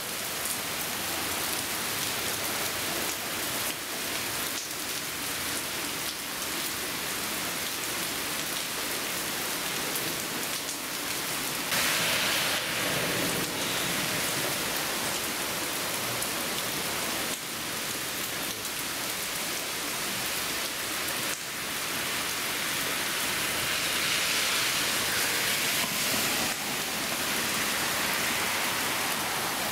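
Heavy rain pouring down onto a yard, pavement and street in a steady hiss. About midway a car's tyres hiss past on the wet road.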